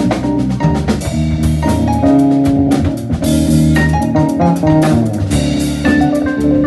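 Live trio of electric keyboard, drum kit and electric bass guitar playing an instrumental tune, the drums and cymbals keeping a steady beat under keyboard chords and a bass line.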